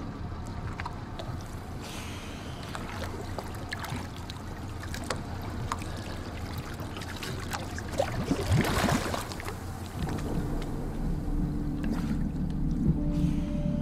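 Water sloshing and splashing around a diver in the water beside a small boat at sea, with scattered small knocks. A louder splashing rush comes about eight seconds in. From about ten seconds a low steady drone joins in.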